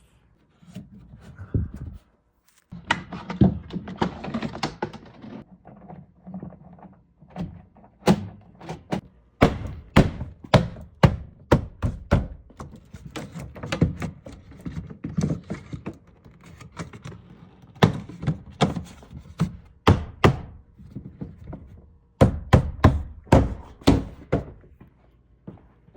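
Many sharp knocks and thunks at an irregular pace from a car door being worked on by hand, the door and its panel being handled, pressed and tapped into place after a new exterior handle has been fitted.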